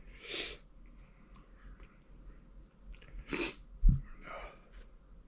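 Heavy breathing: two forceful breaths or sniffs about three seconds apart and a softer one after, from a man whose mouth is burning from Carolina Reaper popcorn. A dull thump right after the second breath is the loudest sound.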